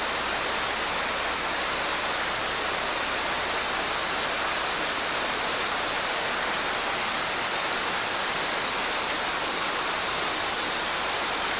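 Mountain stream running steadily, a continuous rush of water. Robust cicadas (minmin-zemi) sing faintly behind it, a high buzz that swells and fades on and off.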